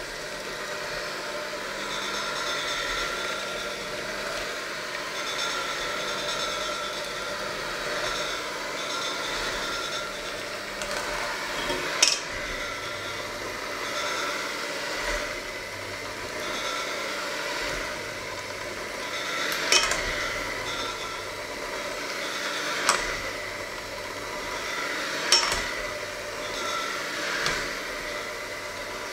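Electric hand mixer running steadily, its beaters working a thick mixture in a stainless steel bowl. A few sharp clinks of the beaters striking the bowl's side stand out in the second half.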